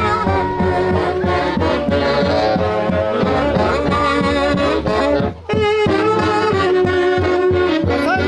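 Band music led by wind instruments playing held melodic lines over a steady drum beat, with a brief break in the sound about five seconds in.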